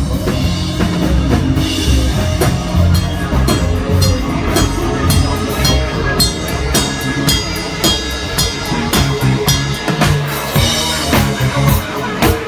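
Live band music with a steady drum-kit beat of bass and snare drum under a bass line.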